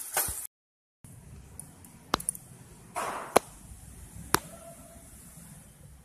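A steel spoon scraping briefly in a pan, then, after a cut, three sharp clicks about a second apart with a short rustle between the first two: a steel spoon knocking against a steel bowl of salad.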